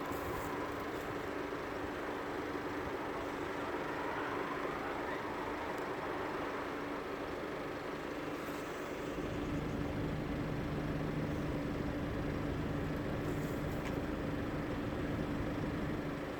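A vehicle engine running steadily at idle; about halfway through a deeper engine note comes in and the sound grows a little louder.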